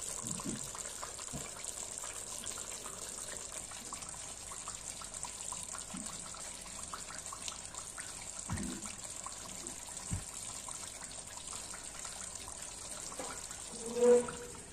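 Coconut-milk sauce simmering in a pot of fish, a faint steady bubbling with many small pops as it cooks down to an oily finish. A brief louder low sound comes near the end.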